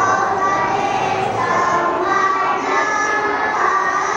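A group of young children singing together in unison, holding each note for about half a second to a second.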